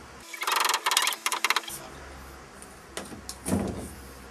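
A fast, dense clatter of rapid pulses lasting about a second and a half, followed by a couple of separate knocks, as during hammer-and-nail carpentry work.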